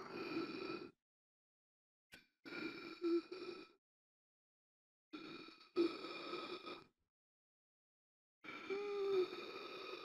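A person gasping for air: four strained breaths about three seconds apart, with dead silence between them. Several catch in the throat with a short voiced groan.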